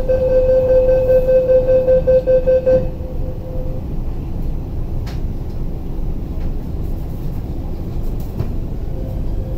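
Door-closing warning beeps on an MTR East Rail Line IKK (SP1900) electric train: a rapid run of loud beeps on one pitch that stops about three seconds in as the doors shut. Then the carriage's steady low rumble, with a faint rising motor whine near the end as the train starts to pull away.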